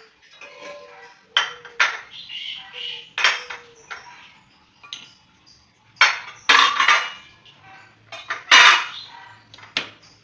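Dishes and cutlery clinking and clattering in irregular bursts, the loudest clatters about six seconds in and again near the end.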